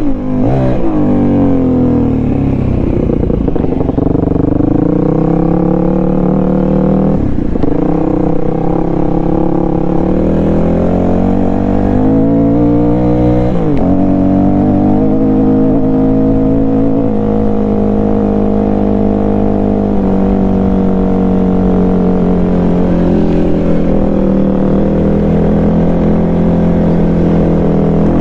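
Dual-sport motorcycle engine running under way on a dirt trail, its pitch rising and falling with the throttle, with two sharp dips about seven and thirteen seconds in.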